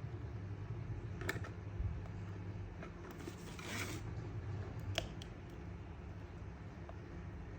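Hands handling a plastic action figure and its packaging: a few light clicks and a brief rustle about three seconds in, over a steady low hum.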